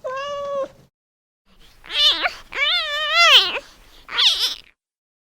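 Young kitten meowing four times in high, thin calls; the first is short and level, the third is the longest and rises then falls in pitch.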